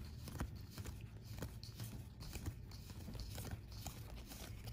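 Stack of Wingspan bird cards being flipped through in the hand: an irregular string of light card snaps and slides, over a low steady hum.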